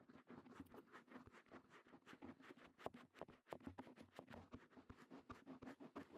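Quiet, close-up scratching and clicking at the ear of a KU100 binaural dummy head as ASMR ear-cleaning tools are worked against it, many irregular small scrapes and taps a second.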